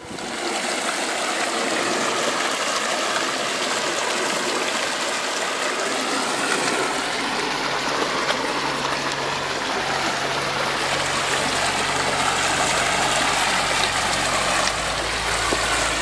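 A shallow mountain creek running over rocks, giving a steady rush of flowing water with small cascades.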